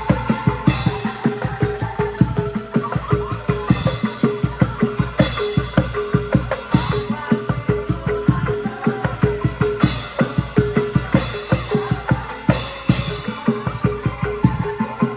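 Angklung ensemble playing a lively tune, bamboo rattles sounding in quick repeated notes over a steady drum beat.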